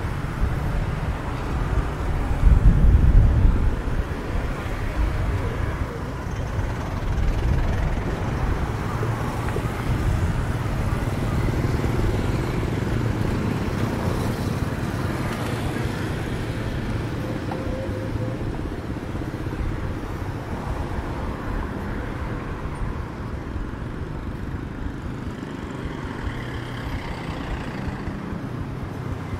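Street traffic: vehicles running past in a steady low rumble, which swells louder about three seconds in.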